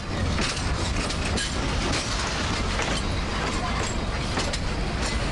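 NG15 class 2-foot gauge steam locomotive running with its train: a steady rumble with irregular clicks and knocks throughout.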